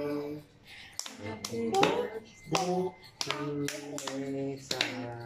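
A family, adults with a small child, singing a birthday song together, with hand claps keeping time about once or twice a second.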